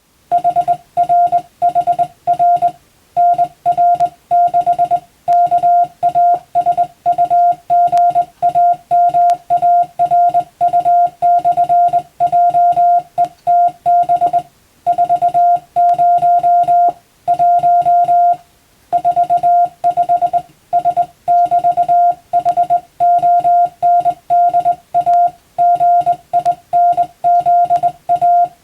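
Hand-keyed Morse code: a single steady tone switched on and off in short dits and longer dahs at an even sending speed, with brief gaps between letters and words and two longer pauses, about halfway through and about two-thirds in. It is telegram-style receiving practice text sent in CW.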